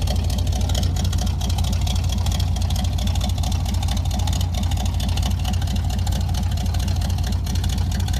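1981 Chevrolet C10 pickup's engine idling steadily, with a deep exhaust rumble that the owner credits to its cam.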